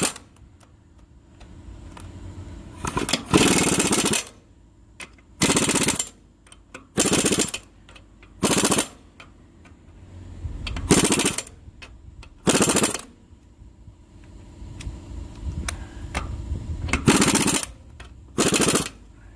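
Ingersoll Rand Titanium air impact wrench hammering the rear-wheel bolts of a Massey Ferguson TO35 tight, working around the wheel. It gives eight short rattling bursts of about half a second each, the second of them a little longer, with short pauses between them.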